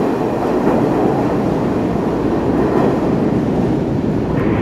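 New York City subway train (an R46 on the C line) running out of the station into the tunnel: a steady rumble and clatter of steel wheels on the rails.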